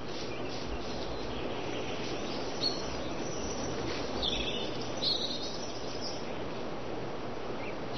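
Outdoor ambience: a steady rushing noise, with several short bird chirps around the middle.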